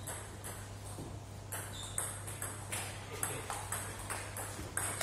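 Table tennis balls clicking off bats and table tops in quick, uneven succession from rallies at more than one table, over a steady low hum.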